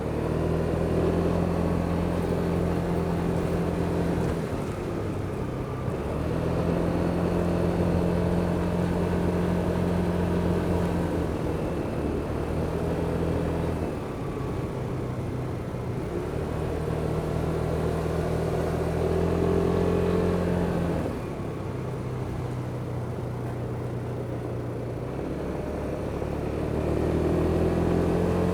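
Kymco Superdink 300 scooter's single-cylinder engine running under way, its note holding steady under throttle and dropping back several times as the throttle is eased, then picking up again.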